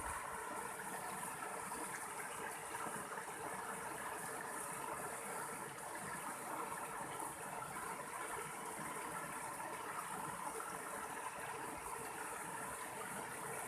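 Mountain stream water running and splashing steadily over rocks.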